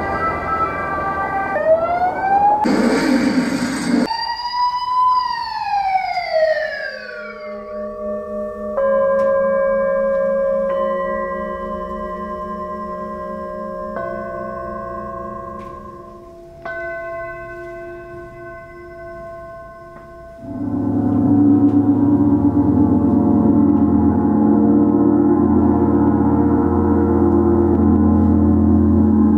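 A large gong played with soft felt mallets, swelling from about two-thirds of the way through into a loud, dense wash of low ringing. Before that, sustained ringing tones enter one after another, and near the start a cluster of tones slides up and then back down in pitch.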